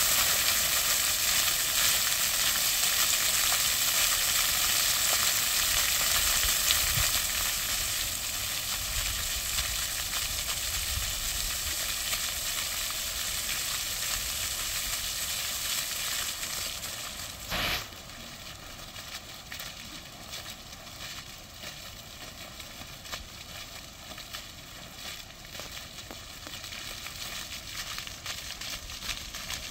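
Plaza fountain's water jets spraying and splashing onto a paved basin: a steady hiss that softens as the jets die down and drops again about 17 seconds in, just after a brief louder rush.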